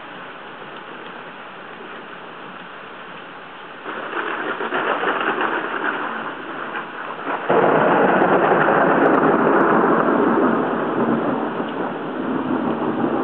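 Hurricane wind and rain buffeting a waterproof camera's built-in microphone: a steady rushing noise that turns suddenly louder in a gust about four seconds in, then stronger still just past the middle, easing slightly near the end.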